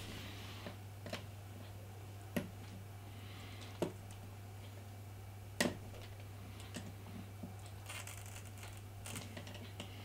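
Scattered small plastic and metal clicks and taps, about seven in all, the loudest about five and a half seconds in, as a pen cap presses the iMac's memory-door release button above the power port and the door is worked at. The door does not pop open easily. A steady low hum runs underneath.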